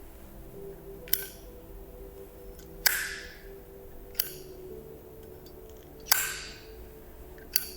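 Zippo lighter's hinged metal lid flipped open and snapped shut over and over: five sharp metallic clacks about a second and a half apart, several with a short ringing tail.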